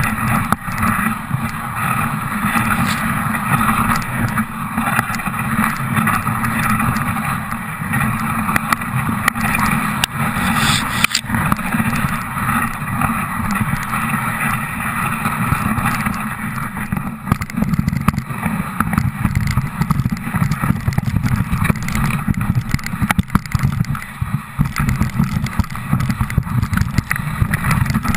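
Dog sled moving over snow: a steady rushing, scraping noise from the runners with a low rumble as the sled shakes.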